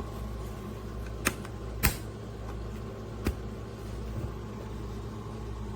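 Three separate sharp clicks, the second the loudest, over a steady low hum, with a faint tap a little later.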